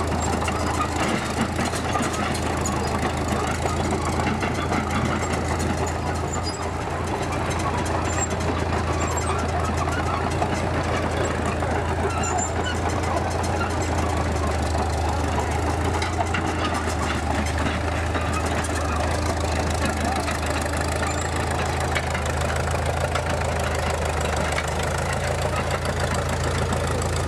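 Small Caterpillar crawler dozer's engine running steadily as it drives, with the steel tracks clattering.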